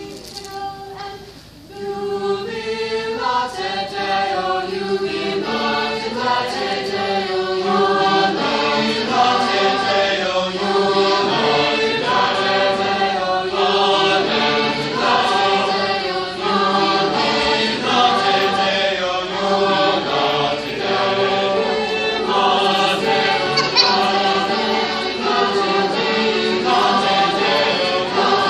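Mixed teenage choir of boys and girls singing together under a conductor, coming in about two seconds in and going on steadily.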